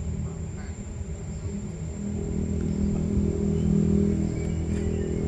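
An engine running with a steady low hum that grows louder about two seconds in and then holds.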